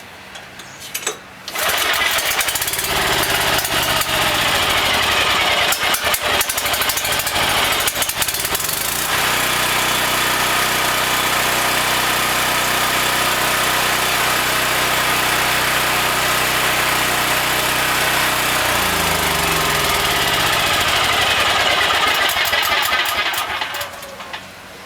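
Homelite 5700-watt portable generator's engine, running on propane through a tri-fuel conversion kit, catching on a cord pull about a second and a half in. It runs loud with its speed hunting as it settles, holds a steady pitch, shifts again later, and is shut off near the end.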